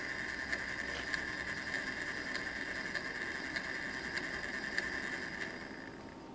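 Small DC test motor whirring steadily with a light regular ticking, then dying away about six seconds in. It is running on power stored in a TCS KA1 keep-alive after the track power has been cut.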